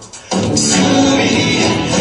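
A recorded worship song with singing and a full band. The music drops out for a moment at the start, then comes back in full about a third of a second in.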